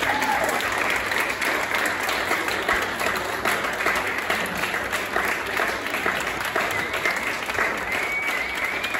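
Small audience applauding steadily at the close of an opera duet.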